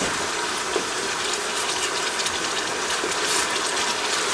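Onions frying with added water and tomato paste, sizzling and bubbling steadily in a metal pot while a spoon stirs them, with a few light scrapes of the spoon against the pot.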